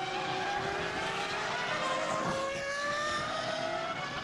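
Formula One cars' 3.0-litre V10 engines running at high revs, more than one at once, their pitch gliding slowly up and down.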